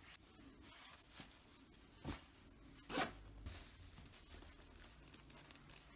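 Faint rustle of winter clothing as a leather jacket and gloves are put on, with three short swishes about a second apart, the last the loudest.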